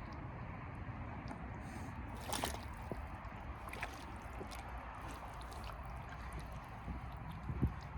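Rubber boots (Muck Arctics) squelching and sucking in sloppy peat-bog mud, a few separate wet squelches, over a steady low rumble.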